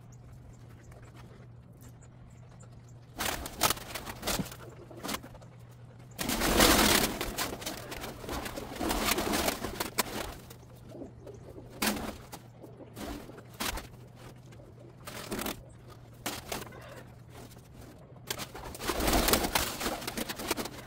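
Pigeons in a loft: several loud bursts of wing flapping as birds take off, the longest about six seconds in and another near the end, with cooing between.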